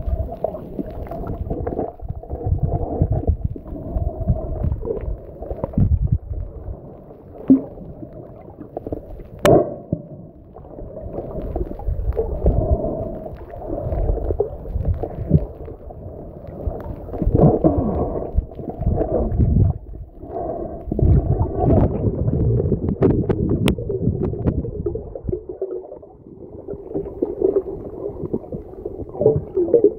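Muffled underwater rumbling and gurgling picked up by a phone's microphone while submerged, swelling and fading in uneven surges every few seconds over a low steady hum, with a few sharp clicks.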